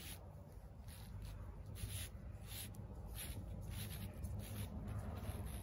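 A series of short scraping or rubbing strokes, roughly two a second and unevenly spaced, over a low steady rumble.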